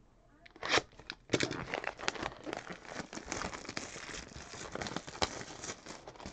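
Box cutter slitting the cellophane shrink-wrap on a trading-card hobby box, a short scrape about a second in. The plastic wrap then crinkles and tears steadily as it is pulled off the box.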